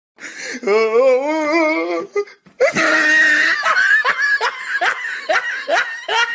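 Laughter sound-effect clip: a high, wavering giggle for about two seconds, then after a short break a longer laugh in quick rising bursts, about two a second.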